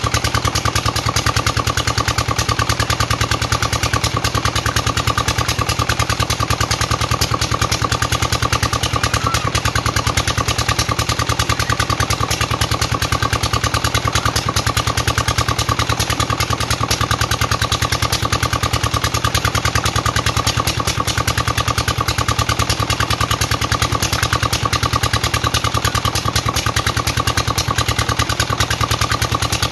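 Engine-driven farm water pump running steadily, its engine chugging with a fast, even beat.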